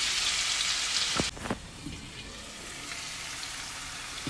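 Onion-tomato masala sizzling in oil in a kadai. About a second in, two short knocks come and the sizzle drops to a quieter, steady bubbling.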